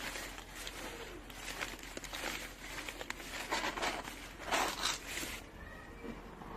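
Irregular rustling and crinkling, like something light being handled or scrabbled at, with scattered small clicks. It is heaviest a little past the middle.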